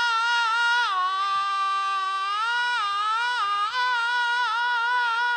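A single high voice holding one long, unbroken Peking opera-style melisma with a wide vibrato. It steps down to a lower note about a second in and works its way back up to the starting pitch in the second half.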